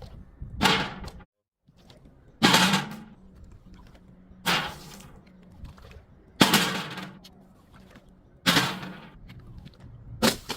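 Crunchy objects being crushed one after another: six sharp cracks about two seconds apart, each trailing off in a short crunch, over a steady low hum.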